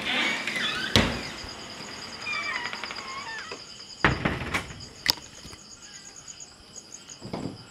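Kittens mewing in short, thin, high calls, a few near the start and a cluster in the middle, with several sharp knocks and a steady high-pitched whine behind them.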